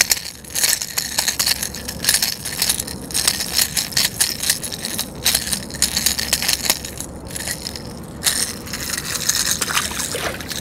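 The rattle inside a hard plastic topwater lure clatters in quick, irregular clicks as a hooked bluefish shakes on it and the hooks are worked free with pliers. A splash comes near the end.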